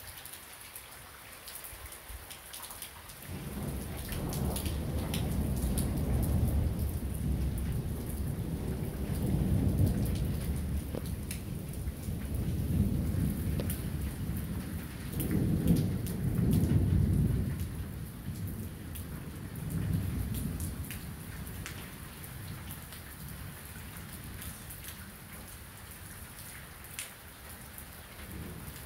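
Rain falling steadily, with drops ticking on nearby surfaces, under a long roll of thunder. The thunder starts rumbling about three seconds in, swells twice, and dies away over some twenty seconds.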